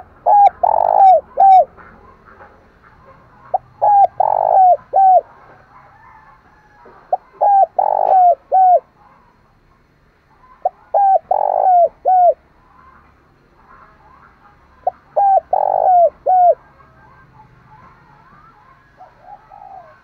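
Caged decoy spotted dove cooing: five phrases about three to four seconds apart, each a couple of short coos, a longer, louder coo and a final short one.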